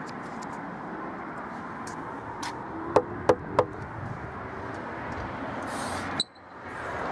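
Three quick raps of a brass door knocker on a front door, each with a short metallic ring, over a steady background hum.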